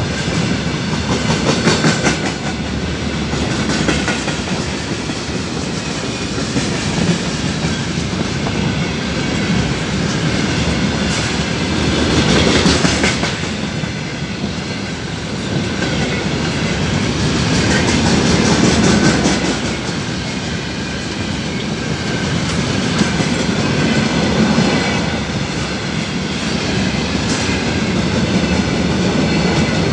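Long freight train of open-top gondola wagons rolling past: a steady wheel-on-rail rumble with clickety-clack over the rail joints, swelling louder now and then.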